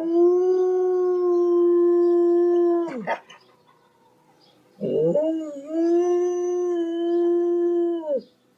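A dog howling: two long, steady howls of about three seconds each, each dropping in pitch as it ends, with a brief cry between them.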